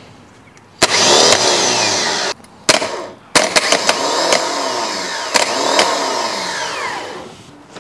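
Car starter motor run on the bench from a jump-start pack: it clicks in and whirs for about a second and a half, then in a short burst, then for about four seconds before winding down. The pinion throws forward and spins, so the starter is working normally.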